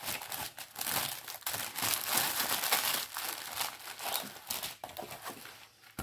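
Plastic packaging of a diamond painting kit crinkling and rustling as it is handled and unwrapped, a continuous crackle that is densest in the middle.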